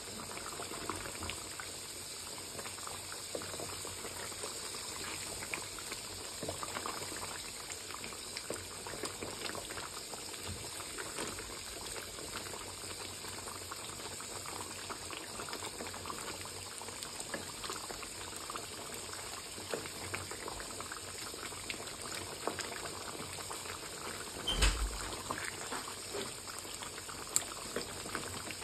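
Beef rendang sauce with potatoes simmering in a wok, bubbling steadily with many small pops. A single knock about three-quarters of the way through.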